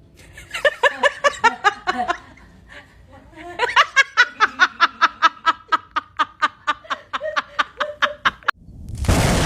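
Rapid, rhythmic laughter in two bouts, a short one and then a longer one, each 'ha' a separate pulse at about five a second. Near the end a loud, sudden rush of noise cuts in.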